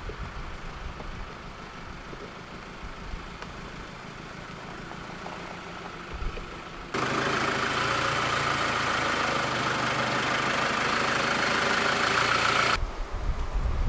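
Land Rover Defender 110's diesel engine idling, faint and low for the first half. It is much louder from about seven seconds in, then cuts off abruptly shortly before the end.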